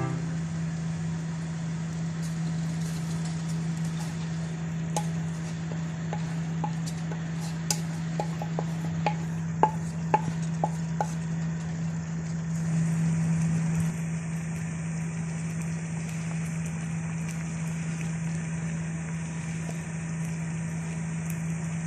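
Kitchen cooking sounds: a steady low hum under a scatter of light clinks and taps, a spoon against a pot, mostly between about four and eleven seconds in.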